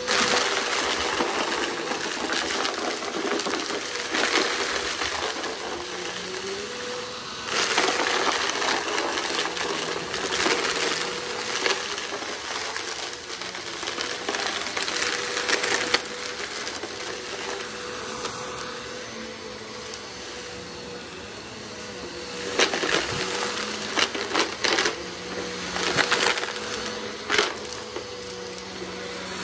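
Upright vacuum cleaner running as it sucks up a pile of small rubber bands and grit, which rattle and crunch through the machine over the steady motor hum. Louder bursts of clatter come about a second in, around eight and ten seconds in, and in several spikes near the end.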